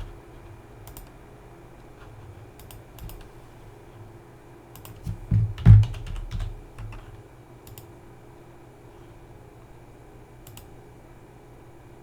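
Computer keyboard being typed on in sparse, scattered keystrokes, with a louder cluster of clacks and knocks about five to six seconds in.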